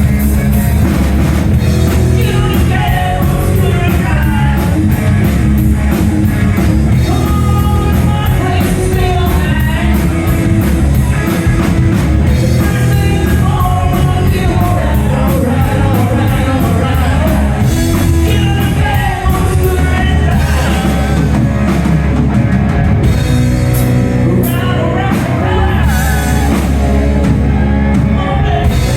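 Loud live hard-rock band playing: drum kit, distorted electric guitars and bass under a bending lead vocal or guitar melody line.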